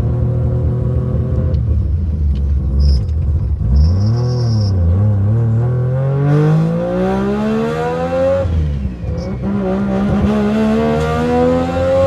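Three-rotor rotary engine of a Mazda RX-7 running, blipped once, then accelerating hard twice: its pitch climbs steadily for about three seconds, drops sharply as at a shift or lift-off, then climbs again.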